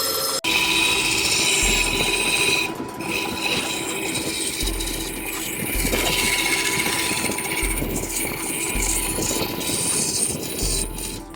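Wood lathe running with a steady mechanical hum and hiss, mixed with the regular deep bass notes of an electronic music track. The sound cuts abruptly about half a second in.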